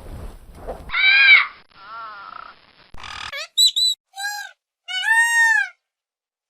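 Bird calls from several short clips cut together: loud arching calls about a second in, then quick chirps and longer arching calls in the second half.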